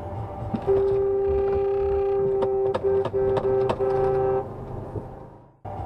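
Car horn held for nearly two seconds, then sounded in a run of four or five quick short taps at a driver cutting across.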